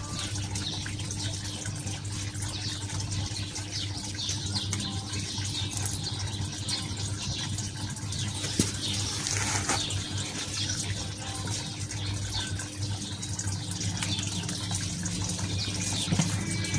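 Steady noise of running water over a low, steady hum, with one short knock about eight and a half seconds in.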